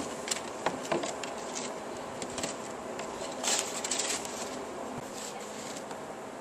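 Hard plastic sled being handled and set down on packed snow: a few light knocks in the first second, then a brief crunchy scrape of plastic on snow about three and a half seconds in.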